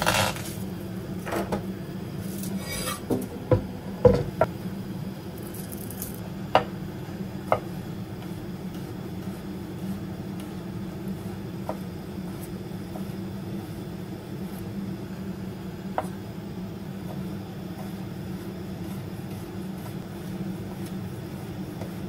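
Garlic cloves pressed and crushed under the palm on a wooden cutting board with a short crunch, then scattered knocks and taps of a chef's knife on the board as the garlic is sliced. A steady low hum runs underneath.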